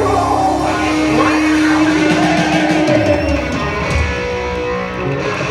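Hard rock music led by electric guitar, playing steadily.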